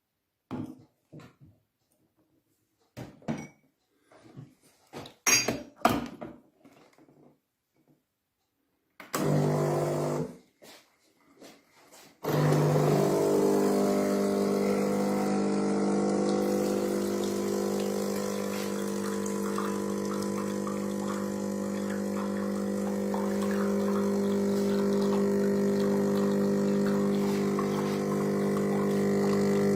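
Melitta Molino electric burr coffee grinder: a few clicks and knocks of handling, then its motor runs for a moment and stops, and about twelve seconds in it starts again and runs with a steady hum, grinding.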